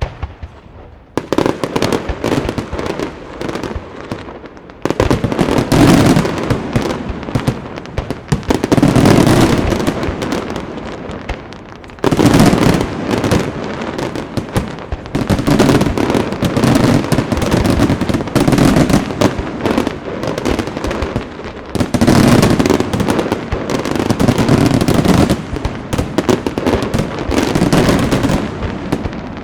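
Large aerial fireworks display: dense, rapid volleys of bursting shells and crackle, loud and almost continuous. The barrage swells in fresh surges about a second in, then around 5, 12 and 22 seconds.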